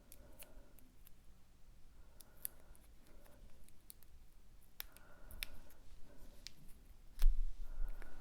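Small clicks and rustles of card-stock pieces being handled on a work surface, with one louder thump about seven seconds in.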